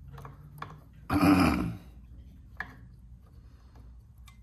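Hand tools and parts being handled on an old outboard motor: a few light clicks and a loud, short scraping clatter about a second in.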